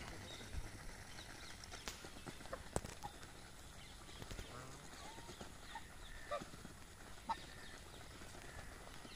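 A flock of white domestic ducks feeding, with faint scattered clicks and taps of bills pecking at rice, grass and a plastic feed bag. A few short, soft calls come in the middle.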